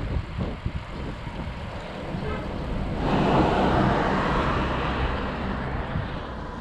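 A van drives past, its tyre and engine noise swelling in about three seconds in, peaking a second later and fading away. Underneath it runs a steady low rumble of wind on the microphone of the moving bike.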